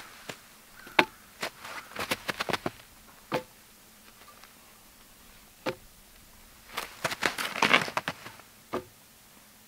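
Boots crunching on snow in two short bursts, and a few sharp wooden knocks as short log sections are set down across two poles.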